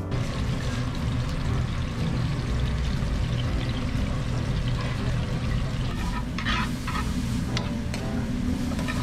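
A floured whole red snapper deep-frying in a wire basket: hot oil bubbling and sizzling steadily over a low rumble, with a few short sharp clatters about six to seven seconds in.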